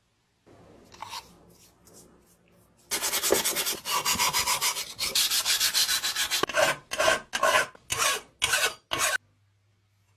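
Rust being rubbed off a car horn's metal by hand with an abrasive. Faint scraping at first, then loud fast scrubbing strokes run together, changing to about seven separate slower strokes before stopping abruptly.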